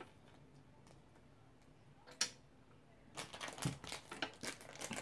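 Handling noises of a small toy and its foil blind-bag wrapper on a tabletop: a single sharp click about two seconds in, then a run of irregular rustles and clicks in the second half.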